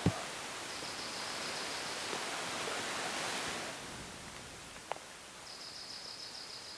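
Outdoor ambience: a steady rushing hiss that fades down a little about halfway through, with a high, thin trill heard twice and a sharp click about five seconds in.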